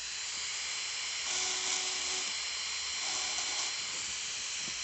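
High-speed dental handpiece with a fissure bur running, a steady hiss with a thin high whine, cutting the cavity walls of an upper first molar; it grows a little louder in two short stretches as the bur bears on the tooth.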